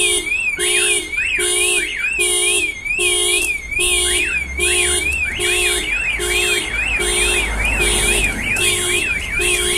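Toyota Prius car alarm going off, set off by unlocking the armed car with the key: a pulsing horn tone about once every 0.8 seconds with a fast warbling electronic siren over it. It starts abruptly and keeps an even rhythm.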